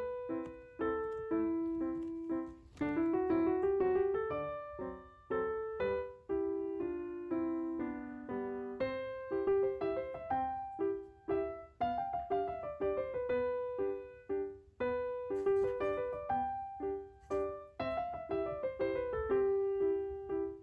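Background piano music: a gentle melody of struck notes, each ringing and fading.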